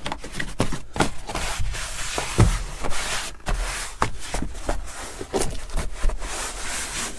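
Hands working a molded cab floor carpet into place: rustling and scraping of the carpet with many light knocks throughout.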